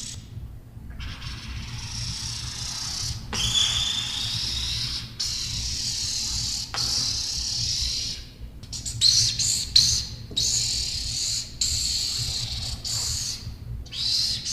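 Long hissing noises broken by short pauses, with squeaky tones sliding up and down, made as a homemade horror sound effect.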